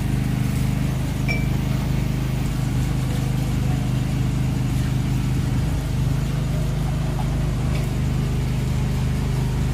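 Engine-driven generator running steadily with a low hum; its tone shifts slightly about halfway through.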